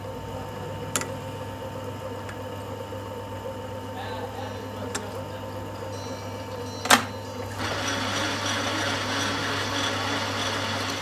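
Metal lathe in a workshop: a few light metallic clicks as the tool post is tightened with a key, a sharp metal clank about seven seconds in, then the lathe spindle starts and runs with a steady machine noise over a constant low hum.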